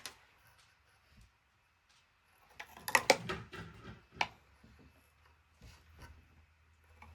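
Parts being handled during a PC build: a short flurry of plastic and metal clicks and rattles about three seconds in, ending in one sharp click, with a few faint ticks around it.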